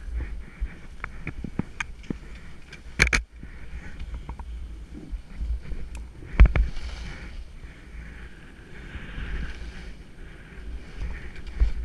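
Skis hissing as they slide through deep soft snow, with wind buffeting the microphone. Scattered sharp clicks and knocks come through, the loudest about three seconds in and another about six and a half seconds in.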